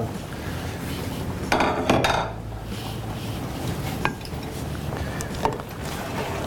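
Cutlery and dishes clinking and scraping as fried dumplings are laid out on a plate. There is a longer scrape about two seconds in and a few short sharp clinks later.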